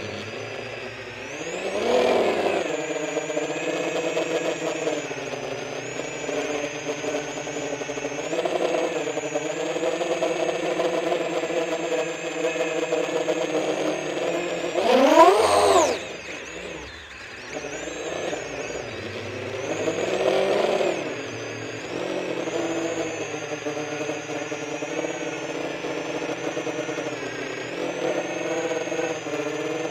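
The motors and propellers of a 10-inch freestyle FPV quadcopter whirring, the pitch rising and falling with the throttle. It swells about two seconds in and again about two-thirds through, and around the middle a hard throttle punch sweeps the pitch steeply up to the loudest point before it drops away.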